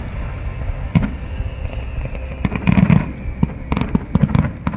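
Fireworks going off: bunches of sharp bangs and crackling pops, one about a second in, a cluster around three seconds and another near the end.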